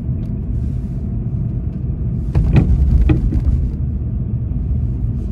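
Steady low road rumble of tyres and engine from inside a moving car's cabin, with a brief louder, rougher stretch a little past the middle.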